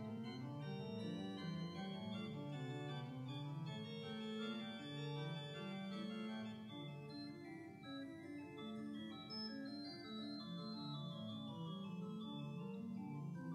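Organ music: slow, held chords with several notes sounding together, changing every second or so.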